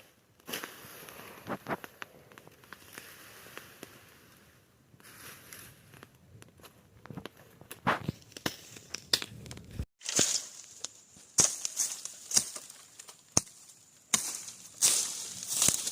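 Dry brush and grass rustling, tearing and snapping in irregular crackles, louder and denser in the second half.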